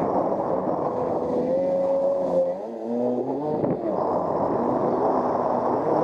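Jet ski engine running at speed over rushing wind and water. About two and a half seconds in its pitch drops and wavers, then it climbs again as the throttle comes back on.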